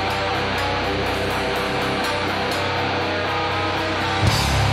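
Live heavy rock band playing an instrumental passage: electric guitar riffing over bass guitar and drums. About four seconds in a loud crash hits and the low end gets heavier.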